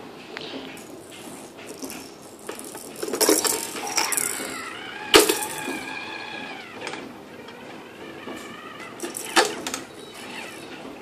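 Kitchenware clattering and knocking, with one sharp, loud knock about five seconds in, another burst of clatter near the end, and a high, wavering sound lasting about three seconds in between.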